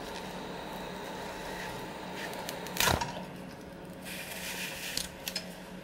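ATX computer power supply's cooling fan running with a steady hum, then a sharp click about three seconds in as the green power-on wire is pulled and the supply shuts off; the running noise drops after it, and a few small clicks follow near the end.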